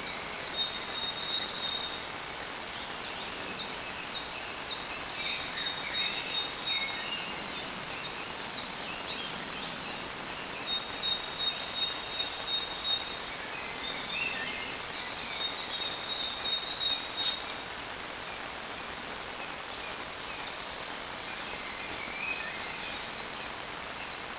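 Birds singing in several bursts of short chirps and high, held whistled notes, over a steady hiss of background noise.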